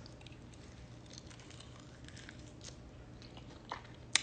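A person biting into and chewing a chicken wing: faint, scattered wet mouth clicks and smacks, with one sharper click near the end.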